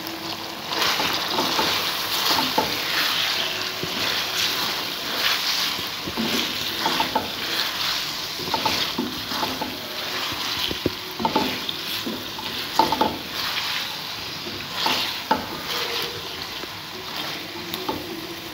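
A slotted spatula stirs and scrapes chicken, peas and chopped tomatoes around a metal pan while the food sizzles in ghee during the bhuna (sauté) stage, cooked without water. Irregular scraping strokes, about one or two a second, sound over a steady sizzle.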